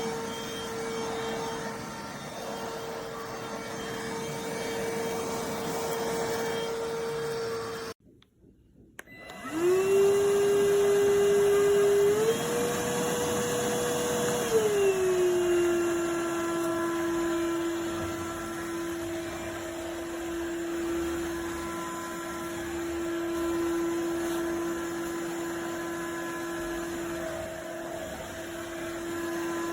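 Motor of the iwoly C150 cordless stick vacuum running with a steady whine. About eight seconds in it cuts off abruptly. About a second later it starts again, spinning up with a rising whine, steps briefly higher, then settles to a steady, slightly lower pitch.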